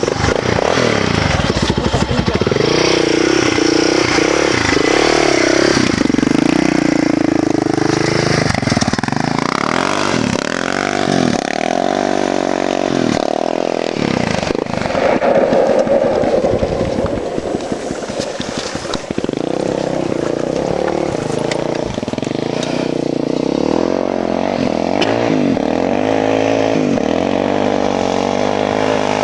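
ATV engine running hard on a dirt road, its pitch rising and falling again and again as it revs up and shifts through the gears.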